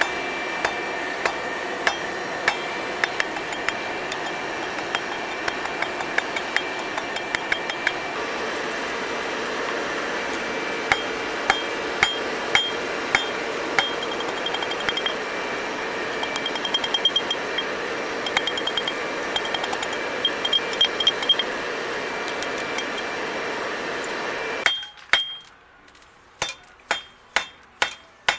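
Hand hammer striking steel on an anvil while forging tongs: separate ringing blows, with a stretch of quicker, lighter ringing taps midway, over a steady background noise. Near the end the background stops abruptly and the blows ring out clearly, about two a second.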